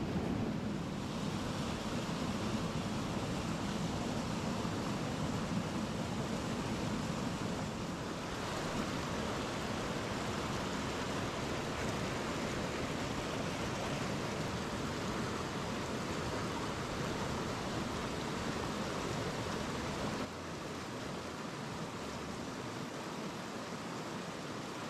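Steady rushing of a mountain stream's water, an even noise that steps down slightly about 8 and 20 seconds in.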